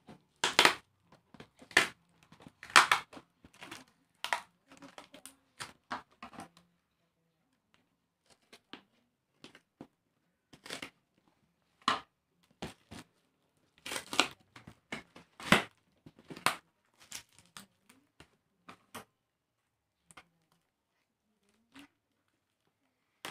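Packing tape being ripped off a taped cardboard parcel in a run of short tearing strips, with crinkling of the tape and box wrapping. The rips come thick in the first six seconds, thin out, then come thick again about halfway through.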